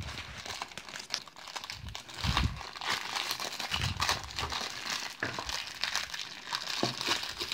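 Crinkling of plastic toy packaging being unwrapped and handled, with irregular small clicks and a few soft low knocks.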